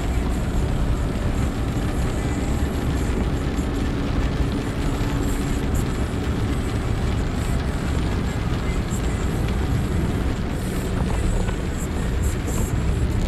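Steady car cabin noise while driving on a wet road in rain: a low rumble of engine and tyres on wet tarmac, with a hiss of rain and spray and scattered light ticks of drops on the glass.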